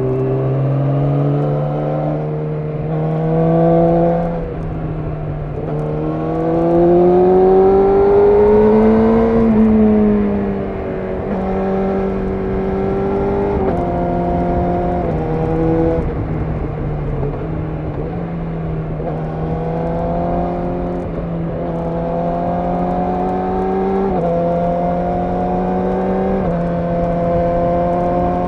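Yamaha YZF-R6 inline-four engine pulling through the gears: the pitch climbs and then steps down at each gear change, several times over. Its longest, loudest climb comes about a third of the way in, then the revs glide down as the throttle comes off.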